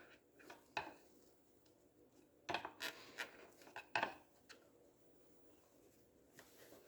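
A small pry bar working at engine-bay parts: scattered faint metallic clicks and taps, with a cluster of them about two and a half seconds in and another about four seconds in.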